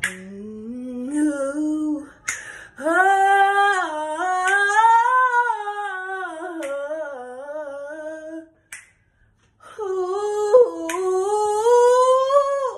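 A woman singing wordless, long held notes that slide up and down in pitch, breaking for a breath about nine seconds in before a rising held note.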